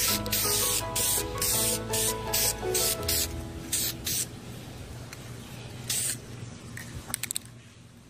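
Aerosol spray can of Dupli-Color vinyl and fabric paint, sprayed in about a dozen short bursts over the first four seconds, with one more burst about six seconds in and a quick run of brief spurts near the end.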